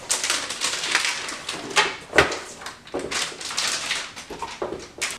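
Packaging and parts being handled: irregular rustling and scraping with sharp clicks and knocks, the loudest click a little past two seconds in.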